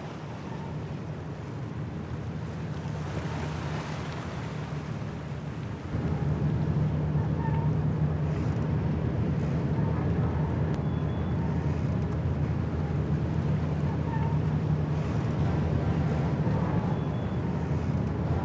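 Ambient sound of a large warship under way: a steady low engine drone over wind and sea wash, getting louder about six seconds in.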